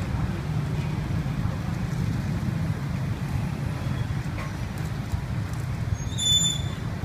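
Steady low rumble of street traffic, with a few faint clicks as metal tongs turn bananas on a wire charcoal grill, and a brief high squeak about six seconds in.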